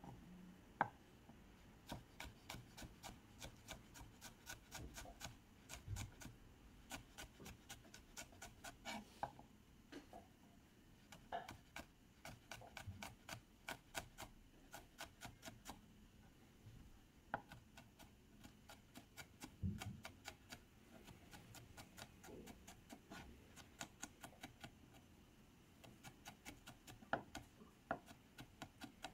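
Faint, quick knife taps as a chef's knife minces onion on a wooden cutting board, rocking down into small dice, in runs of about four or five strokes a second broken by short pauses.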